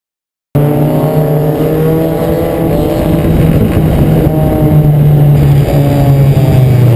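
Four-cylinder Acura Integra race car engine running hard at fairly steady revs, cutting in abruptly about half a second in.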